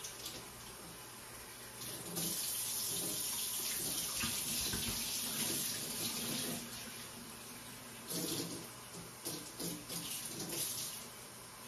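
Kitchen sink tap running as a bottle is rinsed of dish soap under it, louder for a few seconds early on, then broken into short uneven splashes near the end.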